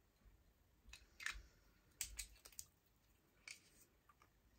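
Faint clicks and taps of a perfume bottle and its packaging being handled, a few scattered over the seconds.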